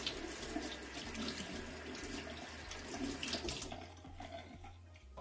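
Kitchen tap running into a sink while hands are washed, shut off about four seconds in.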